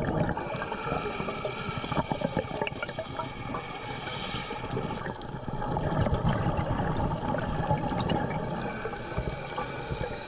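Muffled underwater water noise with gurgling bubbles as a diver swims over a reef, swelling a little about six seconds in.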